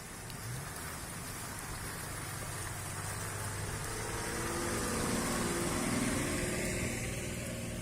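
Off-road 4x4 engine running at low speed, building up under load a few seconds in and easing off near the end, over a steady hiss.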